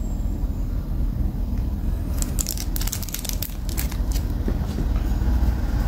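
Brass Zippo lighter being handled: a quick cluster of sharp metal clicks and taps about two seconds in, over a steady low hum.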